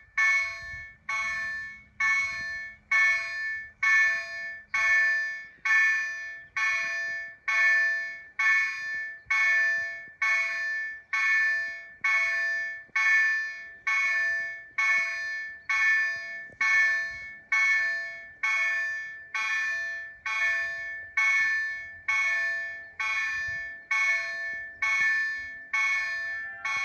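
Railway level-crossing warning bell striking about once a second, each ding fading quickly, while the crossing is activated for an approaching train.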